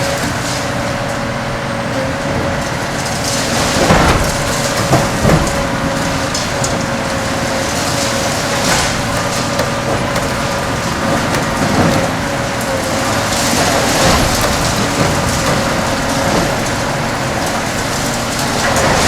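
Kobelco SK 500LC-10 demolition excavator's six-cylinder Hino diesel running under load with a steady hydraulic whine, while its Verachtert VHC 60 concrete shear crushes concrete. Debris crackles and falls continuously, with several heavy crashes of rubble.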